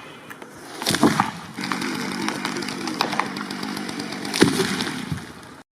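Chainsaw running steadily from about a second and a half in, with loud sharp knocks about a second in and again near the end.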